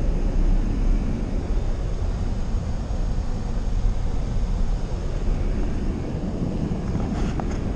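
Inside a car's cabin while it drives over a snow-covered frozen lake: the engine and tyres make a steady low rumble.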